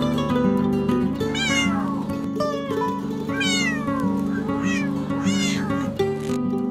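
A cat meowing about four times, each meow falling in pitch, the second the longest, over background music.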